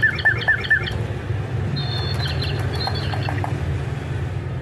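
Caged lovebirds chirping in a fast, even series of about five calls a second for the first second, then a few short high squeaks about two seconds in. A steady low hum runs underneath.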